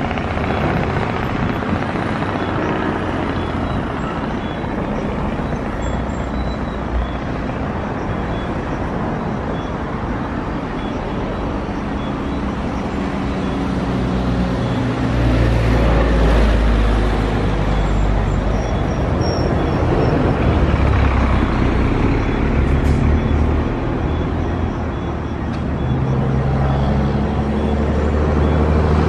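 Jet engines of a twin-engine wide-body airliner running at taxi power as it rolls past: a steady rumble and roar that swells louder about halfway through and again near the end.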